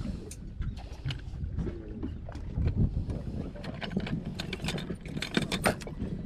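Metal jigs clicking and clacking against each other and the plastic of a lure box as a hand rummages through it, the clatter thickest in the second half. Underneath runs a steady low rumble from the boat.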